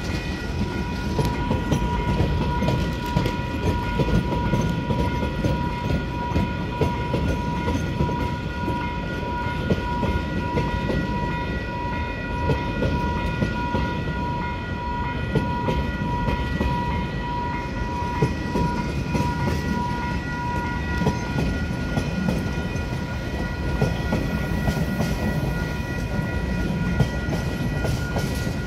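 Freight train wagons rolling past at a level crossing: a steady rumble with scattered wheel clicks over the rail joints. Above it, the level crossing's warning bells ring as steady, pulsing high tones, the lowest of them stopping about three quarters of the way through.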